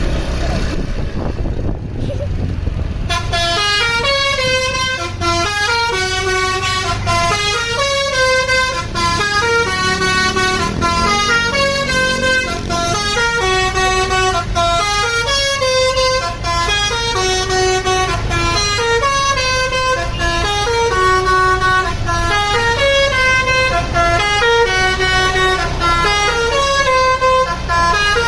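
Basuri telolet bus horn playing a melody in stepping tones, starting about three seconds in, over the low rumble of the bus's engine.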